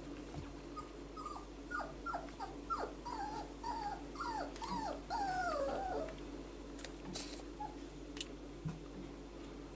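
A four-week-old whippet puppy giving a string of short high whines, each sliding down in pitch, about a dozen over five seconds, the last ones longer and drawn out. A few sharp clicks follow near the end.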